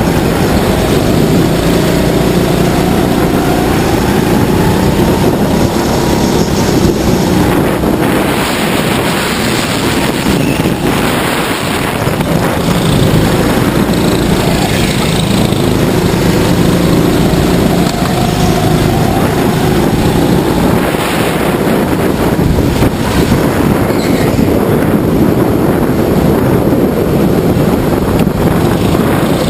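Racing go-kart's motor heard from the driver's seat at speed, its pitch rising and falling with the throttle through the corners.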